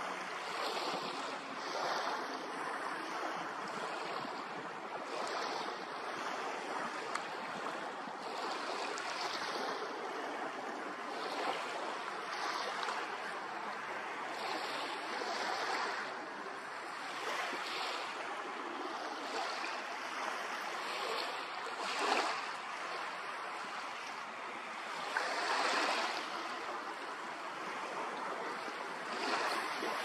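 Small waves washing in, a steady wash of water noise that swells and eases every second or two, with some wind.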